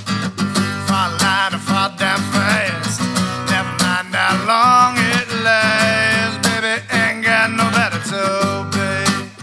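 Background music: strummed acoustic guitar with a singing voice.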